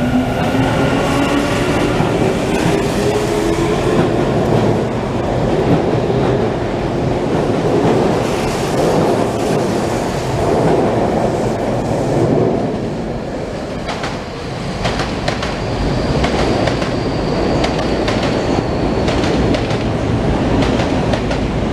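Yokohama Minatomirai Railway Y500 series electric train pulling out and gathering speed. Its motor whine rises in pitch over the first couple of seconds, then gives way to a steady rumble of wheels with rapid clacks over the rail joints as the cars go by.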